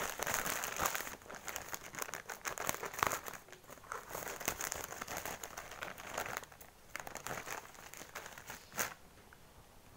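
White plastic courier mailer bag crinkling and rustling as it is handled and opened, busiest in the first few seconds and thinning out later, with one sharp crackle near the end.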